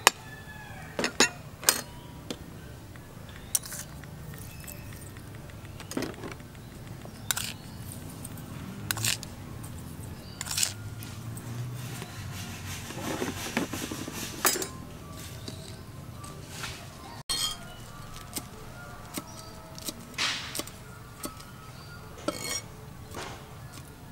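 Metal spoon clinking and tapping against an aluminium pot and small bowls as seasoning is spooned over snails in their shells, in scattered single knocks. Light music plays underneath.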